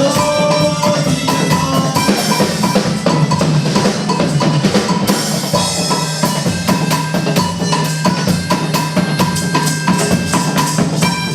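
Drum-heavy music: a fast, dense run of drum and percussion strikes over a held low note.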